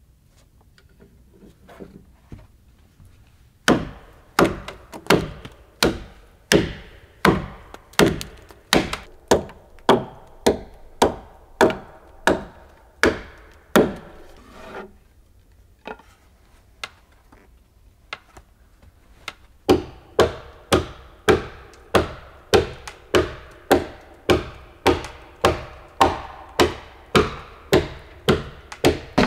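A hatchet striking, fixing wooden roof battens onto the rafters of a timber-frame roof. Regular blows come about three every two seconds, each with a short ringing note. They start a few seconds in, stop for about five seconds near the middle, then resume.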